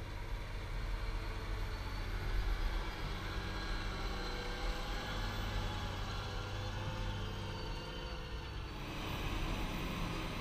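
A large farm tractor's diesel engine running steadily under load while pulling a land leveller. About nine seconds in, the sound turns brighter and hissier.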